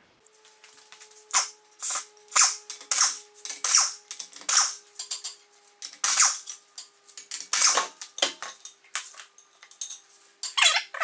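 An irregular series of short rustling and clattering noises over a faint steady hum; near the end a cat starts meowing.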